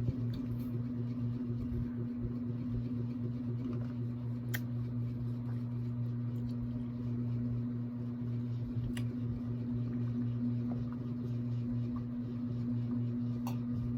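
A steady low hum, such as a fan or appliance running in a small room, with three faint clicks spaced a few seconds apart.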